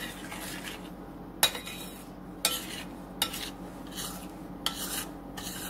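A spoon stirring thick sweetened condensed milk in a glass mixing bowl, scraping around the bowl with a few sharp clinks of the spoon against the glass.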